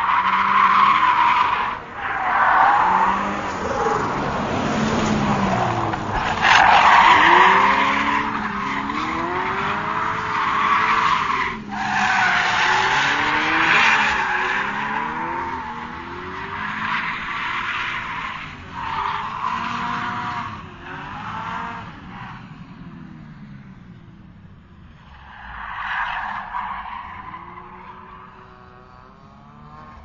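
Racing car drifting: tires squealing in long skids while the engine revs up and down. The squealing fades about two-thirds of the way through, leaving the engine running quieter, with one more brief squeal near the end.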